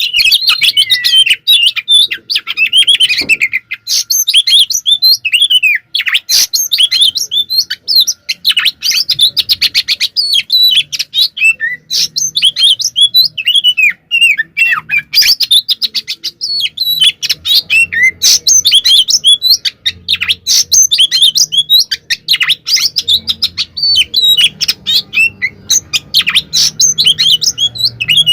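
Oriental magpie-robin (kacer) singing loudly without pause: a rapid, varied stream of sweeping whistles, chirps and fast rattling trills in full, aggressive fighting song.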